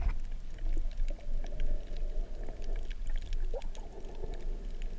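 Underwater ambience of a shallow reef in surge, heard through a GoPro Hero 3's waterproof housing: a low rumble of moving water with many scattered faint clicks, and a brief rising squeak about three and a half seconds in.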